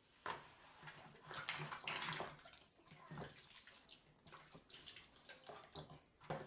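Water splashing in irregular bursts as vegetables are washed by hand.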